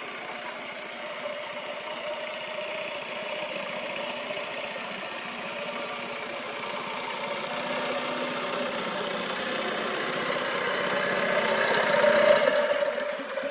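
A small engine running steadily, growing louder to a peak near the end and then falling away, like a motor passing close by.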